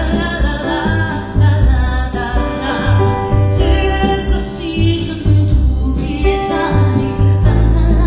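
Music with singing over a heavy, pulsing bass.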